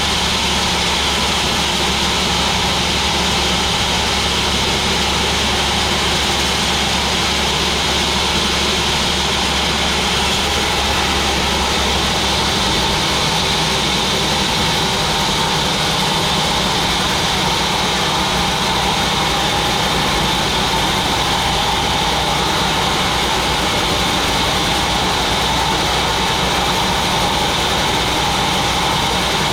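Large sawmill machine running with a steady mechanical drone; its low hum shifts in pitch about twelve seconds in.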